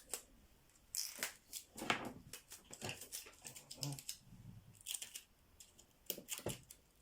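Adhesive tape being pulled off the roll, torn and pressed down, heard as a string of short irregular rasps and crackles.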